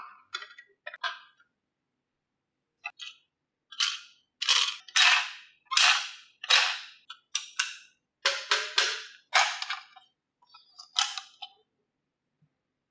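Marbles clacking and clattering down a marble run: scattered clicks at first, then a quick series of sharp hits with short ringing tails from about four seconds in, tailing off near eleven seconds.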